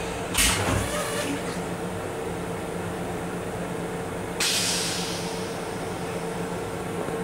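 Rail-car restroom toilet flush cycle: a sudden loud rush of air with a low thump about half a second in, fading over a second, then a second sharp hiss about four seconds later. A steady hum from the rail car runs underneath.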